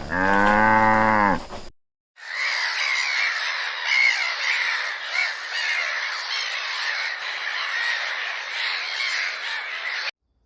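A cow mooing, one long call that ends about a second and a half in. After a brief gap, a flock of birds squawks and calls all together until it cuts off just before the end.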